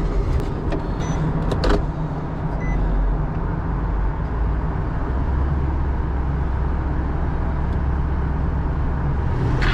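An engine running steadily under load while pulling the boat and trailer up the ramp, its low hum growing stronger about halfway through. A couple of sharp clicks near the start.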